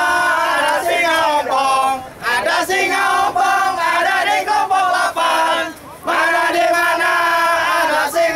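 A group of men chanting a team yell together in unison, in long held, sung notes, with short breaks about two seconds in and about six seconds in.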